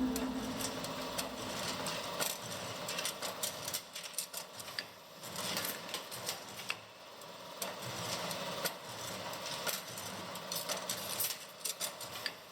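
Automatic CNC rebar stirrup-bending machine running: a steady mechanical hum with many irregular sharp clicks and knocks from its feed and bending mechanism.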